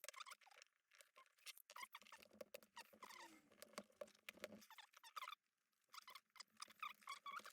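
Faint handling of small plastic lamp-fitting parts: scattered light clicks and short squeaks as the cable clamp is worked onto the pendant cable.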